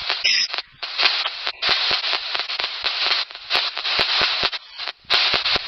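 Radio static hissing in choppy bursts that cut in and out every fraction of a second, with scattered clicks.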